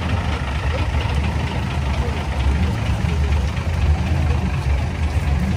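Vehicle engine idling with a deep, steady low rumble.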